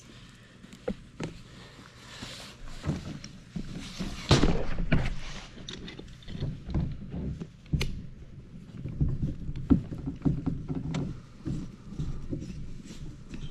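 Hands working over a rubber muck boot while spreading weather-strip adhesive: irregular rubbing, knocks and clicks, with a louder rubbing scrape about four seconds in and a sharp click near eight seconds.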